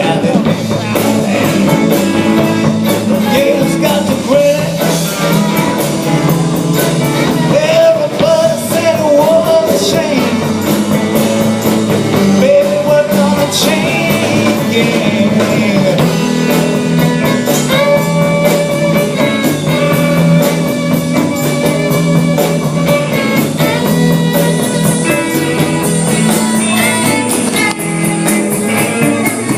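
Rock band playing a bluesy groove on electric guitar and drum kit, with wavering held guitar or vocal notes.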